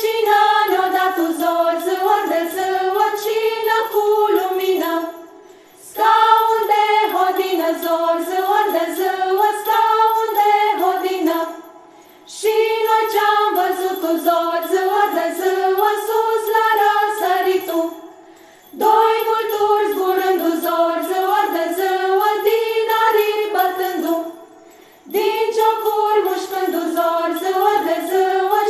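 Women's choir singing a Romanian Christmas carol (colind) as a single melody line, in phrases of about six seconds with a short breath between each, with small bells jingling along.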